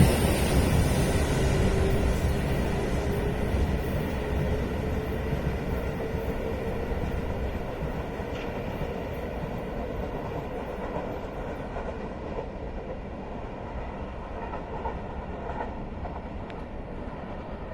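JR West 221 series electric train running on the rails: rumble and wheel noise with a motor whine that dips slightly in pitch. The sound fades steadily as the train slows.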